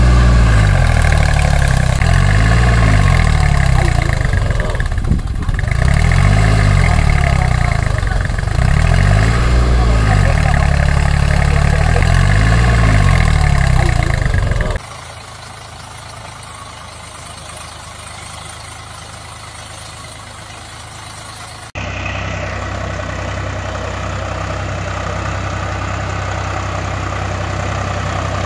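Tractor engine sound, a diesel-like running note that rises and falls in pitch about every two seconds, like repeated revving. About fifteen seconds in it cuts abruptly to a quieter, steadier engine hum. About seven seconds later a louder, steady idling drone cuts in suddenly.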